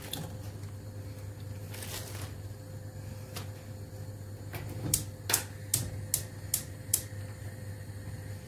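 Gas stove spark igniter clicking about two or three times a second for a few seconds, lighting the burner under the pot, over a steady low hum.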